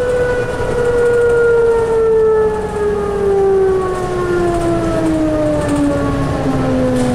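Allison EP 50 hybrid drive whining in a 2004 New Flyer DE60LF articulated bus, its pitch falling steadily throughout as the bus slows, over a low rumble.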